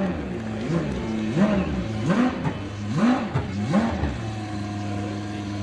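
Formula One car engine revved in about four quick throttle blips, each pitch rising and falling back, then holding a steady note for the last second and a half.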